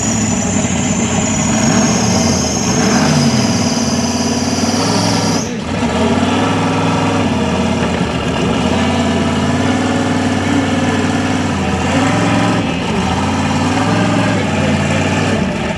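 Rock bouncer's engine idling with small revs. A high whine rides over it for the first five seconds or so, then stops abruptly.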